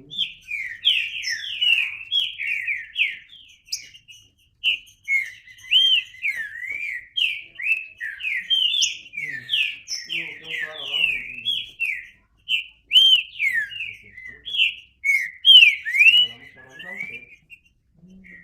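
Green-winged saltator (trinca-ferro) singing: a long, almost unbroken run of quick, slurred whistled notes, each sliding up or down in pitch, with short breaks about four and twelve seconds in.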